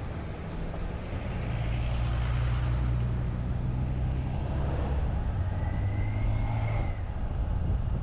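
Motor vehicle's engine pulling away and picking up speed along a highway, getting louder over the first two seconds and then running steadily with tyre and road noise. A faint rising whine comes in about six seconds in.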